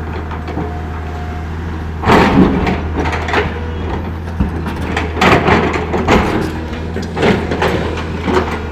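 L&T PC200 hydraulic excavator's diesel engine running steadily, with irregular scraping and clanking as the bucket works against rock. The loudest scrapes come about two seconds in and again around five to six seconds.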